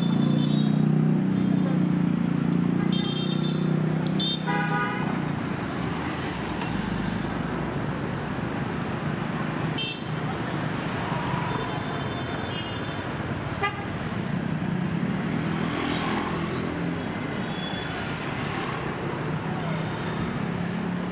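Street traffic with a vehicle engine running close by, and two short horn honks about three and four and a half seconds in. After that, steady traffic noise.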